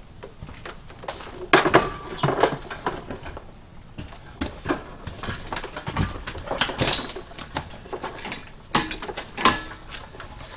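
Handling noise of a portable air compressor and its coiled air hose being moved and set in place: irregular knocks, clatters and rattles in three bunches, the loudest about a second and a half in.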